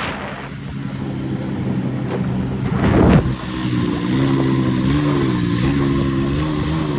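Engine of a Thai racing long-tail boat running at a steady pitch that wavers up and down near the end, with a loud rushing whoosh about three seconds in.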